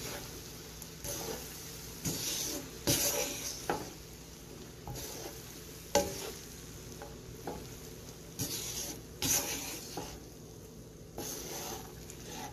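A spatula stirring and tossing cooked rice in a pan: irregular scraping and rustling strokes with a few sharp taps of the spatula against the pan, the loudest about six seconds in.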